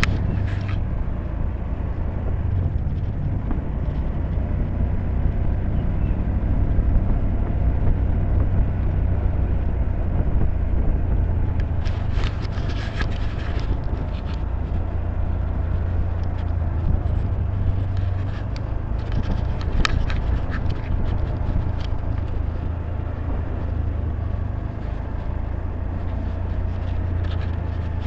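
Honda scooter being ridden: a steady low rumble of engine and wind noise, with short bursts of rattling and clicks about twelve seconds in and again around twenty seconds.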